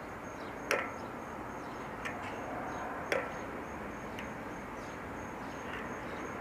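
A few light clicks and taps, about four spread over several seconds, as a bicycle wheel with a disc brake is worked onto a trike and lined up. Behind them are a steady hiss and a faint, rapid, high-pitched chirping.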